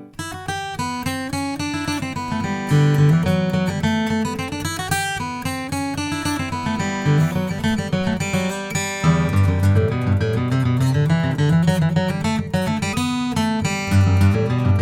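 Taylor 526e First Edition, an all-solid tropical mahogany acoustic guitar, played solo. A new passage starts: a quick run of picked notes and chords over a moving bass line, growing louder with a heavier bass about nine seconds in.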